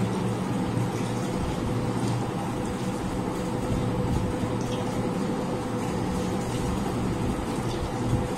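A steady low hum holding several constant tones, with a few faint clicks over it.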